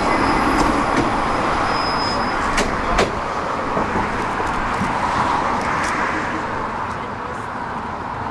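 Electric tram running past and pulling away along the rails: a steady rumble and rush, with a thin high whine in the first couple of seconds and two sharp clicks about three seconds in. The sound gets quieter toward the end as the tram moves off.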